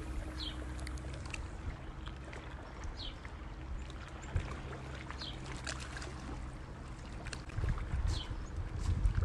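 Small waves lapping at a rocky lakeshore with wind on the microphone, and a bird giving a short, falling chirp four times, every two to three seconds.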